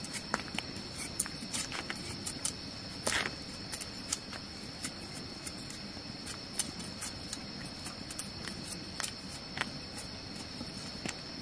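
Steady high-pitched insect chirring, with scattered sharp clicks and taps over it.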